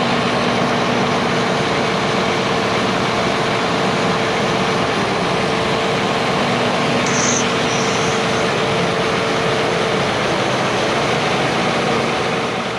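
Harvest machinery running steadily, a dense even drone with a steady hum from the engine.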